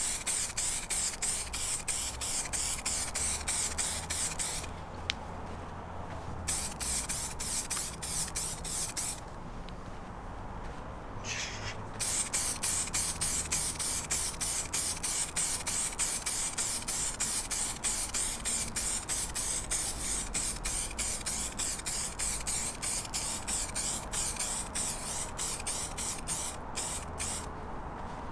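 Aerosol spray can of clear lacquer spraying in long hissing bursts, the hiss fluttering rapidly as the can is swept across the grilles, with two short breaks about five and ten seconds in. This is a second clear coat going onto freshly painted gloss-black plastic grilles.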